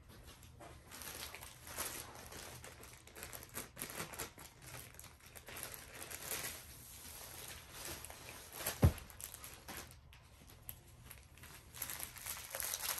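Plastic packaging of a diamond painting kit crinkling and rustling as it is unwrapped and handled, with one sharp knock about nine seconds in, the loudest sound.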